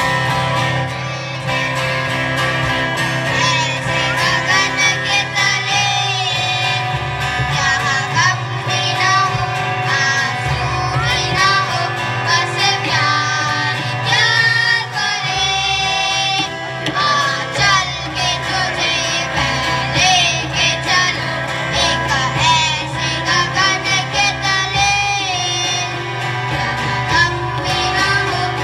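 Live children's group singing into microphones, accompanied by acoustic guitar, electronic keyboard and tabla.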